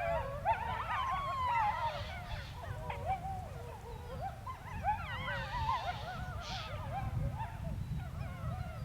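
A pack of grey wolves howling in chorus, many overlapping voices wavering up and down in pitch, mixed with higher yips.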